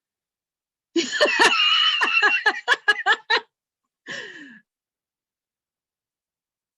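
A person laughing in a quick run of giggling pulses for about two and a half seconds, then a short vocal sound falling in pitch.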